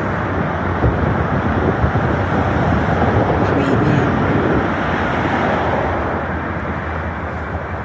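City street traffic ambience: a steady, dense wash of cars passing on the road, easing a little toward the end.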